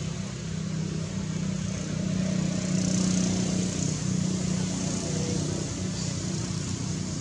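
A low, steady engine hum that swells to its loudest about three seconds in and then eases off.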